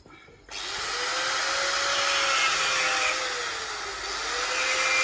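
Electric angle grinder starting up about half a second in and cutting a hole into a terracotta pot, a loud grinding whine over its motor hum. A few seconds in, the motor note sags and recovers as the disc bites into the clay.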